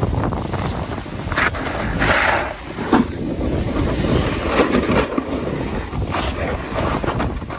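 Wind buffeting the microphone along with the rushing scrape of a snowboard sliding and carving over soft spring slush, swelling and easing unevenly.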